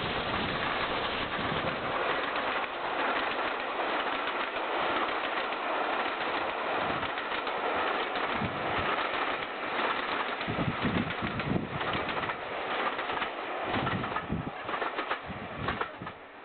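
GWR Castle Class four-cylinder 4-6-0 steam locomotive passing under steam with a railtour train: a steady, dense rush of exhaust and train noise, with some heavier beats about two-thirds of the way through, dying away near the end.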